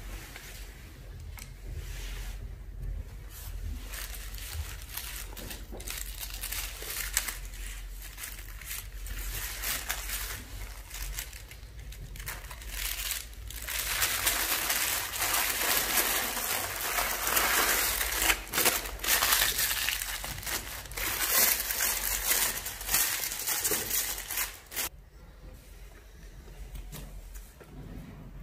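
Crinkling and crackling handling noise full of small clicks, busier and louder for about ten seconds in the second half.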